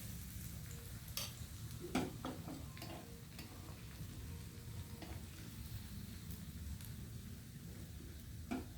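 Peyek frying quietly in hot oil over a steady low stove hum, with a few sharp clicks of a utensil against the pan, the loudest about two seconds in.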